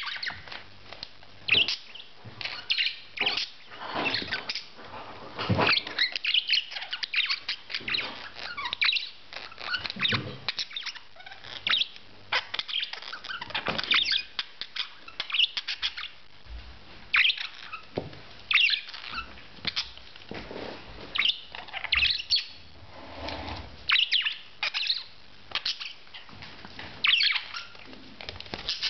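Budgerigar chirping in many short, sharp calls, one after another.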